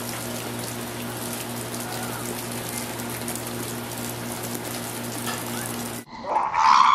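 Steady rain falling, an even hiss full of fine patter, with a constant low hum under it. It cuts off abruptly about six seconds in, and a child's loud, high-pitched scream starts just before the end.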